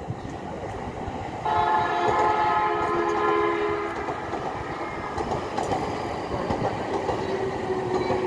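A train running past on the tracks below, with its horn sounding suddenly about a second and a half in and holding for over two seconds over the running noise.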